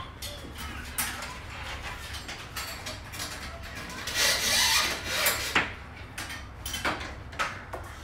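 Rubbing and scraping with scattered knocks and clicks as hands work on the garage door's hardware at the side track; the rough rubbing is loudest about four seconds in.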